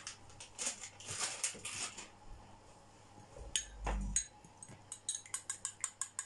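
Teaspoon stirring a marinade in a small ceramic cup, clinking quickly and regularly against the cup's sides from about five seconds in. Before that come a few short scraping sounds and a dull knock.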